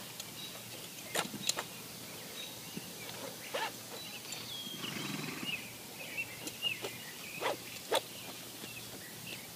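Saddle girth being cinched on a horse: several sharp clicks of the metal tack hardware scattered through, with a low rumbling sound about halfway through.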